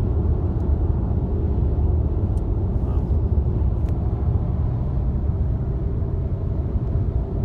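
Steady low rumble of a car driving at highway speed, engine and tyre noise heard from inside the cabin.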